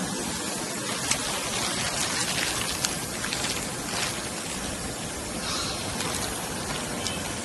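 Almond grinding mill running with a steady, even whir, while a plastic collection bag crinkles with a few sharp ticks as ground almond meal is handled.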